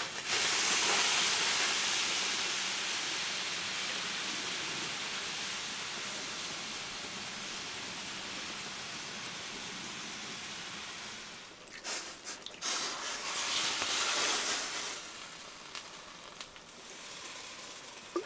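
Loud hiss of steam that starts suddenly and slowly dies away, with a second short surge of hissing about twelve seconds in.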